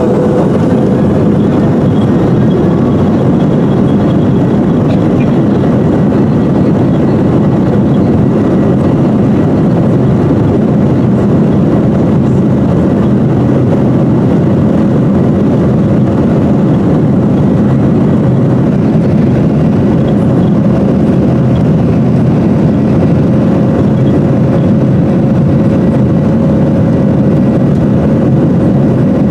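Steady, loud jet engine noise from a Boeing 737-700's CFM56 turbofans, heard inside the cabin: an even rush with a faint steady hum underneath.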